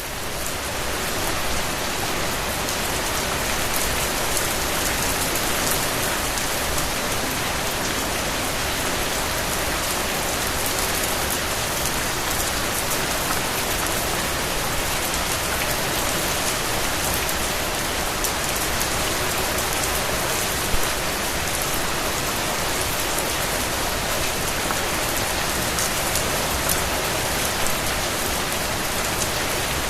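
Steady rain falling on a surface, an even hiss with scattered sharp drop impacts. It swells up over the first second or two and then holds level.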